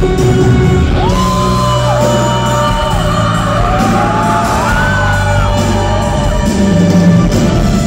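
Live band playing a song in a large hall, with a voice holding long sung notes that rise and fall.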